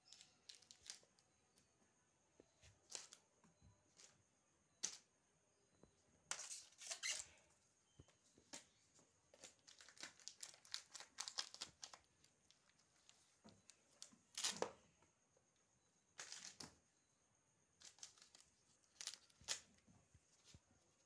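Kittens scuffling and pouncing on a string toy on a concrete floor: soft, irregular scratchy rustles and scrapes from claws, paws and the toy, coming in clusters with quiet gaps between.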